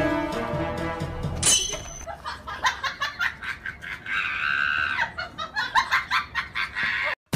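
Background music with sustained tones, broken about a second and a half in by a brief high swoop, then a run of short, choppy bursts.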